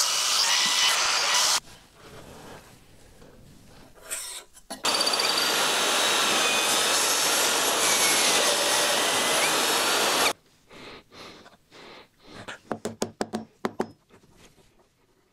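Power tool working wood in two runs: a short one that cuts off early, then a steady run of about five seconds. It is followed by a string of light knocks and clicks from wooden parts being handled.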